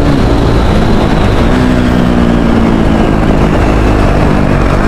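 250 cc motorcycle engine running under way. The throttle eases off at the start, the engine note comes back about one and a half seconds in and sinks a little, then steadies near the end. A steady rush of wind and road noise runs underneath.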